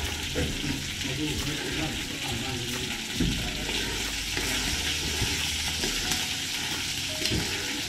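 A metal spoon stirring a pot of sweet-and-sour sauce as it simmers on a gas stove, over a steady hiss, with a few brief knocks of the spoon against the pot.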